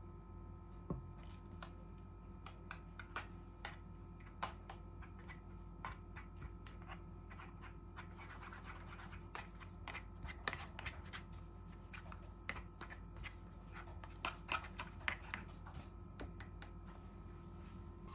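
A spoon stirring a wet oat and instant-coffee mixture in a thin plastic tofu tray: irregular clicks and scraping against the plastic, busiest in the middle and again near the end.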